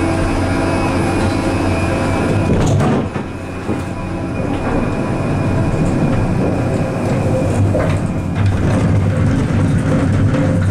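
Doppelmayr eight-seat gondola cabin rolling through a station on its conveyor wheels and then out onto the haul rope: a steady mechanical rumble and hum, with a few clunks about three seconds in.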